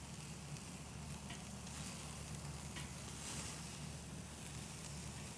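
Bacon-wrapped filet mignons searing over hot charcoal on a kettle grill: a steady sizzle with a few faint crackles. This is the final direct-heat sear of a reverse sear, putting a crust on the outside.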